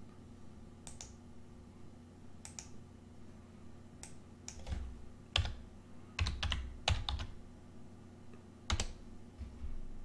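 Computer keyboard keys and mouse buttons clicking: about a dozen short taps at irregular gaps, a few of them with a dull knock.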